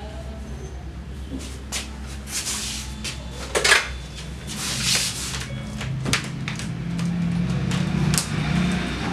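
Scattered light clicks and clatter of small hard objects, with two short hissing bursts a few seconds in; the first is the loudest sound. Background music comes in faintly near the end.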